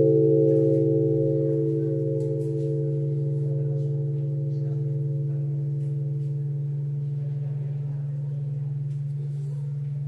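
A bronze church bell, struck for a death knell for a woman, rings out after its stroke: a steady low hum with higher overtones, slowly dying away, the highest overtones fading first.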